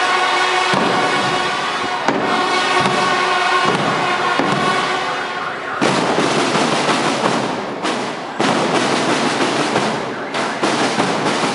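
Marching band in a street parade. For the first six seconds or so, horns hold sustained notes over crowd chatter. Then the horns stop and a dense, rattling drum cadence full of sharp hits takes over.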